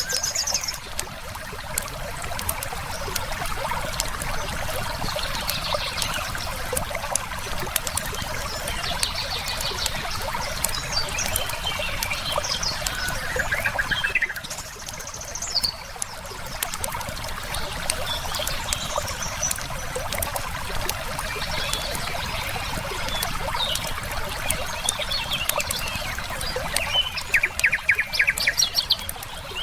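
River water flowing steadily, with songbirds chirping and singing short trills over it and a louder rapid trill near the end. Scattered sharp crackles of a wood fire sound through the mix.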